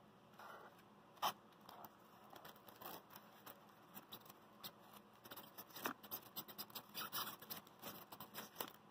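Faint scratching, rustling and small clicks of a hand handling a Stirling engine and its foam-insulated box. There is one sharp click about a second in, then a run of quick scratchy clicks over the last few seconds.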